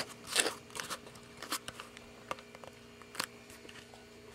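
Handling noise from a new 12-volt air compressor pump and its fittings being turned over in the hands: scattered light clicks, taps and rustles, with a few louder ones in the first second. The pump itself is not running.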